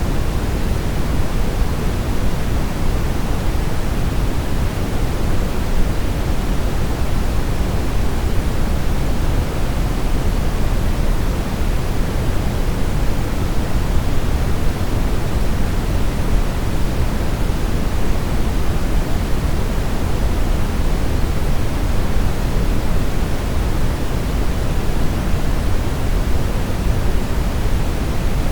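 Steady brown noise: an even, deep rumbling hiss, strongest in the low end, that does not change.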